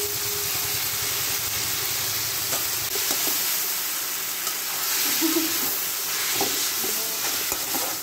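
Noodles and vegetables sizzling in a hot wok as they are stir-fried with a metal spatula: a steady frying hiss, with a few scrapes and taps of the spatula against the wok.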